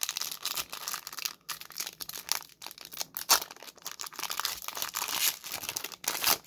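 Foil Pokémon booster pack wrapper crinkling and tearing as it is handled and ripped open by hand: a continuous dense crackle with many sharp crackles.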